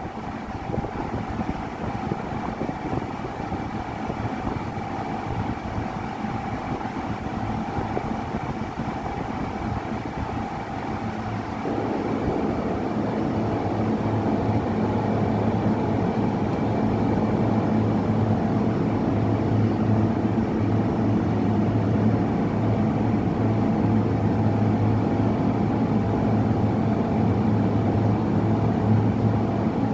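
Steady drone of an engine, growing louder and fuller about twelve seconds in, then holding steady.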